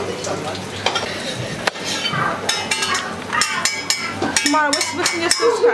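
Kitchen clatter: pots, dishes and utensils clinking and knocking, a quick run of sharp clinks through the second half.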